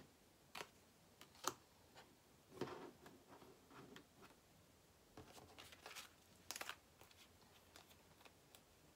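Faint, scattered rustles and light taps of tarot cards being handled on a table, with a quick run of small clicks a little past the middle.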